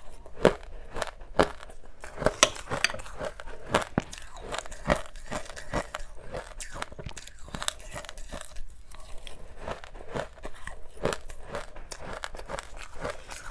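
Close-miked biting and chewing of soft powdered ice dusted with matcha, a run of sharp crunches. The loudest bites come in the first half, and softer crunching follows.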